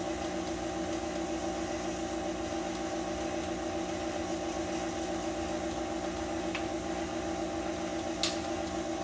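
Stand mixer motor running steadily as it beats cake batter in a steel bowl. A sharp click about eight seconds in, with a fainter one shortly before.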